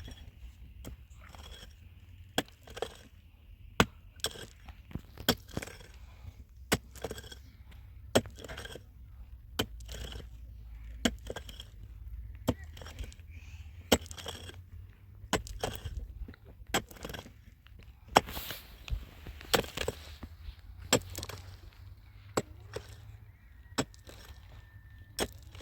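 A series of sharp, irregular knocks, about one or two a second, over a steady low rumble.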